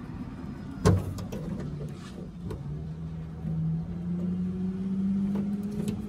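Trunk latch parts being handled and pushed into place: one sharp click about a second in, then a few lighter clicks. Under them runs a steady low hum that grows a little louder and higher from about the middle.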